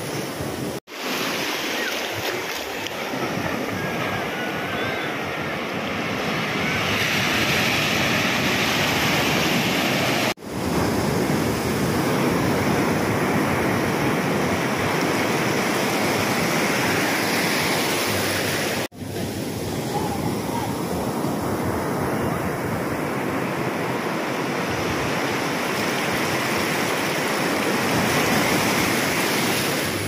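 Sea surf breaking and washing up the beach in a steady rush of foaming water, cut off for an instant three times.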